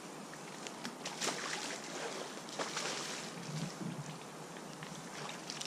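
Water splashing and sloshing in uneven surges, with light crackles and a few soft low bumps about two-thirds of the way through.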